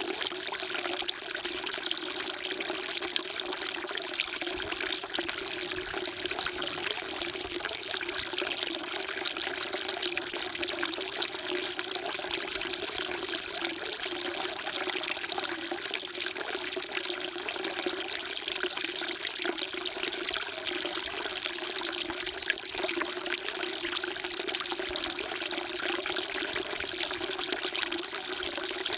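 Water falling steadily from a spout into a temple's stone water trough (sugwak), splashing without pause.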